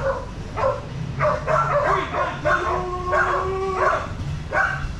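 Excited dog giving a run of short, high-pitched yips and barks, with one longer held whine in the middle, as it waits keyed up for the toy to be thrown.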